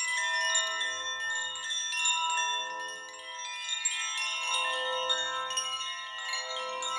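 Magic chimes sound effect with an uneasy feel: small metallic chime notes struck in quick, irregular succession at many pitches. The notes ring on and overlap into a shimmering cluster.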